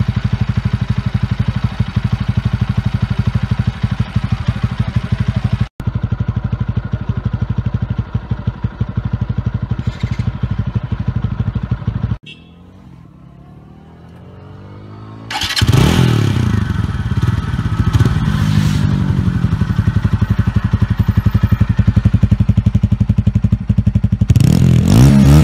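TVS Apache 200's single-cylinder engine idling with a steady rapid exhaust pulse for about twelve seconds. It drops to a much quieter stretch, then is revved in repeated throttle blips from about fifteen seconds in, each rising and falling in pitch.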